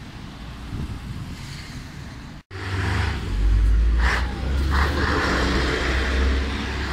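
Light road traffic with a car passing. After a brief dropout, a heavy lorry's diesel engine runs close by with a deep, loud rumble.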